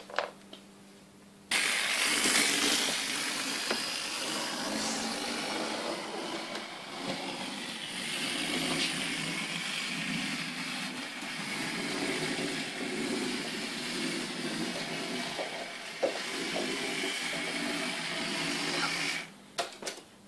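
Computer-controlled analog model railway running: a steady train-running noise switches on abruptly about a second and a half in and cuts off sharply near the end. A click comes at the very start, and a few more just after the noise stops.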